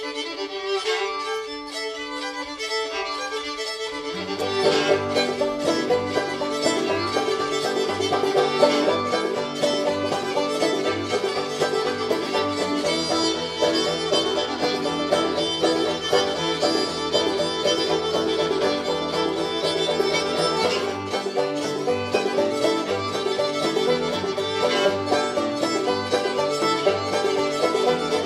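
Background music: a bluegrass-style tune led by fiddle with banjo, thin at first and filling out with a bass line about four seconds in.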